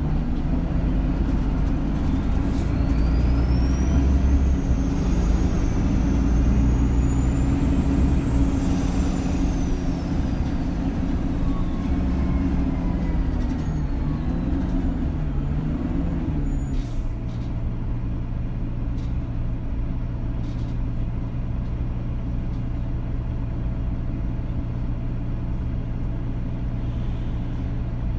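Inside a bus: the engine and drivetrain run while the bus is under way, with a high whine that rises as it speeds up and then slowly falls away. A little over halfway through the engine settles to a steady idle, with a few light clicks.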